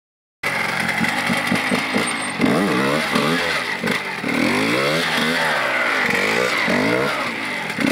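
TM 125 two-stroke motorcycle engine revving up and down repeatedly as the rider holds a wheelie, starting about half a second in after a brief silence.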